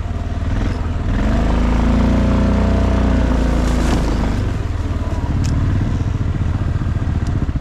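Motorcycle engine running, its pitch rising and falling over the first few seconds, then settling into a lower, even pulsing idle.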